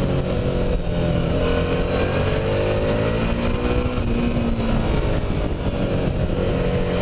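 Suzuki V-Strom 650's 645 cc V-twin engine pulling under way in second gear. The note holds fairly steady, climbs a little and then drops back about five seconds in.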